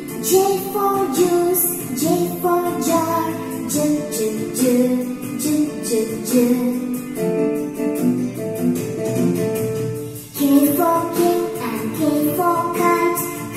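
A children's alphabet phonics song playing from a television: singing of the letter words over an instrumental backing with a steady beat, reaching 'K for King and K for Kite' near the end.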